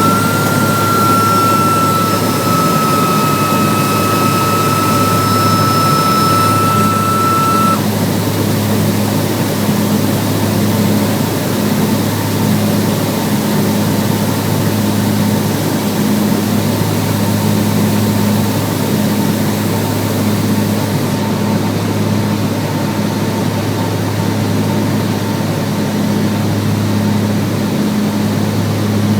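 Cessna 402B's twin piston engines running at a steady, even drone. A steady high-pitched tone sounds over it for the first eight seconds and then cuts off.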